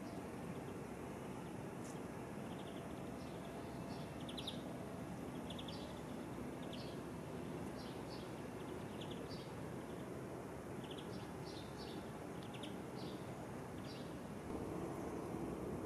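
Small birds chirping, many short calls scattered throughout, over a steady background rumble that grows louder near the end.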